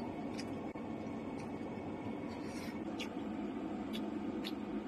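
A few light clicks of chopsticks against a metal hotpot and bowl while eating, over a steady low hum.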